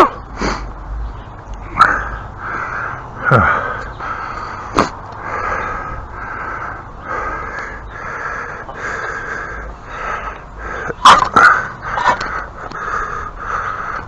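An animal calling over and over, about two short calls a second, with several sharp knocks, the loudest a little past the middle.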